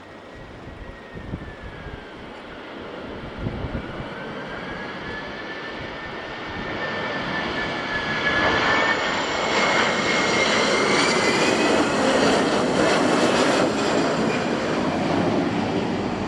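Airbus A320-214 jet engines (CFM56-5B) at go-around thrust, a rumble with a fan whine that dips and rises in pitch. It grows much louder about halfway through as the aircraft comes closer.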